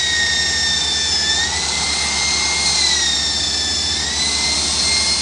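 Electric drill spinning an engine valve against its seat with grinding compound during valve lapping: a steady high-pitched whine that wavers slightly up and down in pitch, over a low hum.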